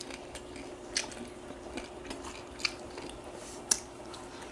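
Close-up chewing and biting of crispy deep-fried pork head, with a few sharp crunches spaced about a second apart.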